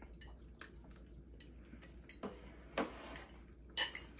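Forks and cutlery clicking and clinking against plates while eating: a dozen or so light, irregular clicks, the strongest about three and four seconds in.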